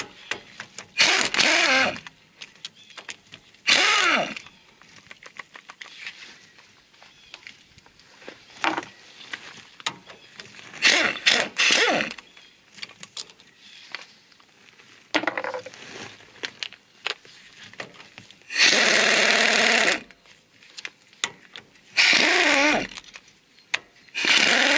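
A handheld power tool spinning a socket to run out the half-inch axle-shaft flange bolts on a Dodge Ram 2500 rear hub. It comes in about seven short bursts, each winding up and back down in pitch, with the longest about 19 seconds in. Light clicks and taps fall between the bursts.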